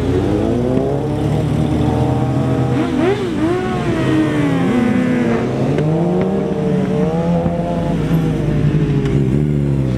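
Engines of a pickup truck and several sport motorcycles accelerating away and passing, their pitches rising and falling one over another as they rev up and shift.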